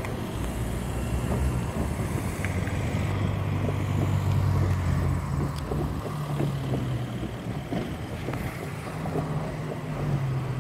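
Street traffic driving past: cars' tyre and engine noise over a low, steady engine drone.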